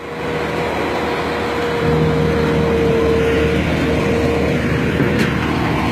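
Diesel engine of a single-drum road roller running as the machine drives forward, growing louder over the first two seconds and then holding steady, with a steady whine over the engine noise.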